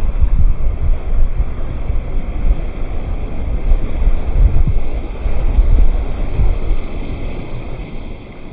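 Wind buffeting the microphone: a loud, low, gusting rumble that rises and falls, fading toward the end.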